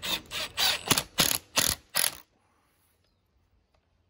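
Cordless drill driving a wood screw up into a chair seat in short pulses, about seven in two seconds, then stopping as the screw is tightened home.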